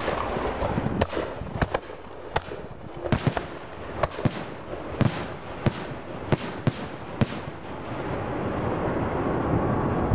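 Aerial firework shells bursting: a rapid, irregular series of about a dozen sharp bangs that stops about seven seconds in, after which a steady background noise rises.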